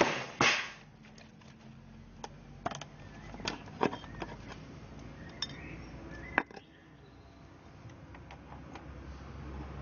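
Cast orgonite pieces of resin and metal shavings clicking and knocking against a metal muffin tin as they are popped out of it and set down. A few sharp knocks, the loudest two within the first second, then scattered lighter clicks.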